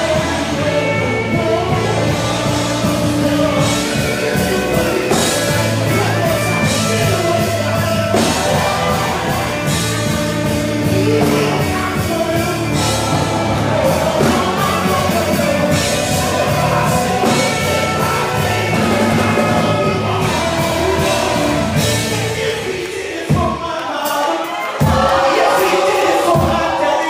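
Gospel choir and a male lead singer performing live with band accompaniment. Near the end the steady bass drops out and the band plays a few short separate hits under the voices.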